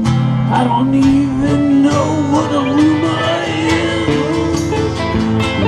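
Live band playing a country-style song: acoustic and electric guitars strumming chords under a wavering lead melody line.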